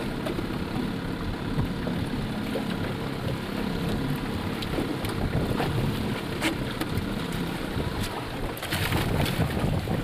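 Small outboard motor running low as an aluminium boat comes alongside a wooden dock, with wind on the microphone. Several sharp knocks and clatters from the aluminium hull and gear, a few around the middle and a cluster near the end.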